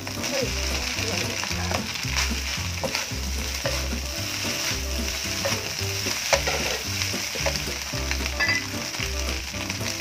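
Cooked rice and scrambled egg sizzling as they are stir-fried in a non-stick wok, with a wooden spatula scraping and turning them in short strokes. Background music with a steady bass beat plays throughout.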